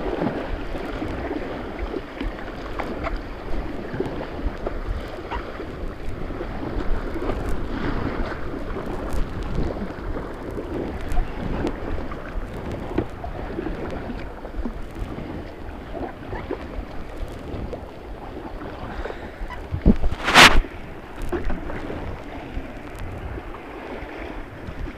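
Fast white water rushing and churning around a kayak, with repeated small splashes of paddle strokes. About twenty seconds in comes a single sharp, loud knock, the loudest sound.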